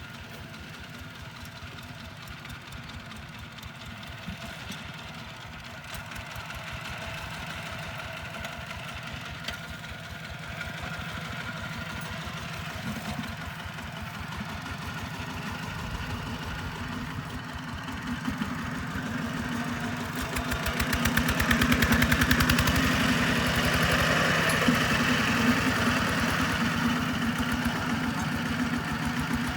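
Tractor diesel engine running with a rapid, even firing beat, slowly building and then much louder from about two-thirds of the way through.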